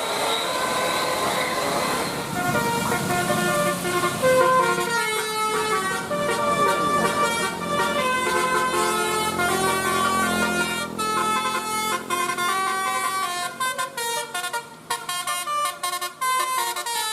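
Bus telolet horn, a multi-tone musical air horn of the 'Basuri' type, playing a tune in stepped, held notes that begin a couple of seconds in over a steady rushing hiss. The notes grow shorter and choppier near the end.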